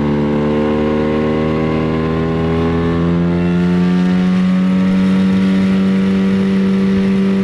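Gladiator 9.8 hp outboard motor running at speed during its break-in, pushing an inflatable boat. Its pitch rises slowly over the first three seconds as it picks up revs, then holds steady at high revs.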